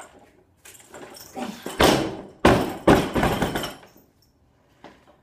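Barbell loaded with rubber bumper plates dropped after a snatch, hitting the plywood lifting platform with a heavy thud about two seconds in and bouncing twice more, then clattering briefly as it settles.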